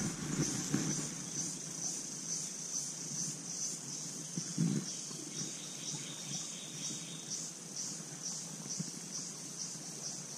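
Insects chirping, a high-pitched pulse repeating steadily about twice a second, over a low rumble.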